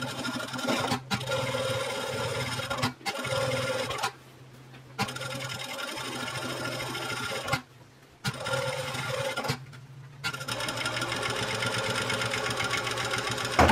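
Juki industrial single-needle lockstitch sewing machine stitching cotton fabric, running in several stretches with short stops between them as the fabric is guided and turned, over a steady low motor hum.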